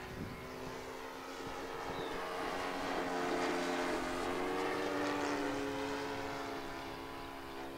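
Laser 160 inline twin four-stroke glow engine of a large radio-controlled P-51 Mustang model running steadily in flight as it passes by. The note swells to its loudest in the middle, drops slightly in pitch and then fades.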